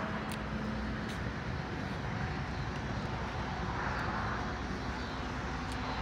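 Steady outdoor background noise: a constant low rumble with hiss, and two faint ticks in the first second.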